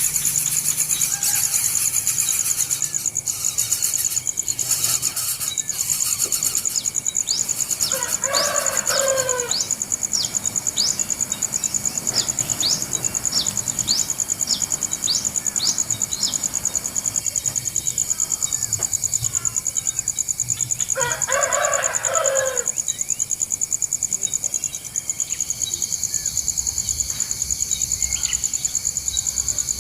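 Steady high-pitched insect drone with a run of quick high chirps, and two louder drawn-out bird calls, one about eight seconds in and one about twenty-one seconds in.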